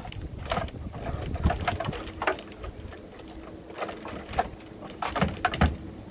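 Irregular knocks and clatters of tools and drain equipment being handled and stowed in the back of a van, over a faint steady hum.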